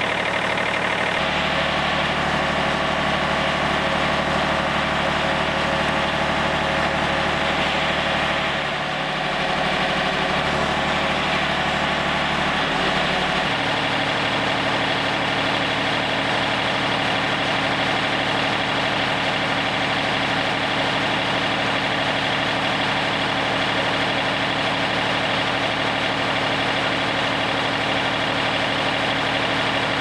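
Yanmar 36 hp diesel engine of a Wood-Mizer LT40 Wide sawmill running steadily at idle.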